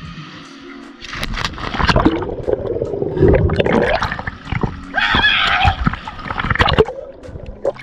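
People jumping into a swimming pool, heard through a camera at and under the water: a loud splash about a second in, then churning, gurgling water and bubbles with repeated splashes.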